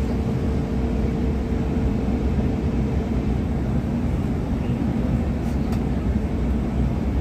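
Steady low road rumble of a vehicle driving on a highway, heard from inside the moving vehicle, with a faint steady hum that fades out about three seconds in.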